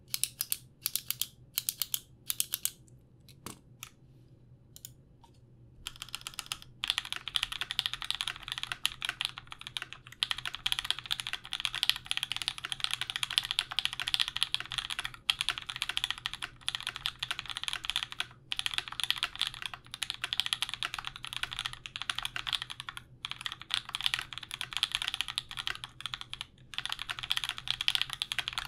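Custom mechanical keyboard (Canoe Gen2 aluminium-plate build with lubed, filmed SOHO switches and GMK keycaps) being typed on: a handful of separate keystrokes with pauses at first, then steady fast typing from about six seconds in. The board has a slight hollowness that the builder thinks foam in the case base would fix.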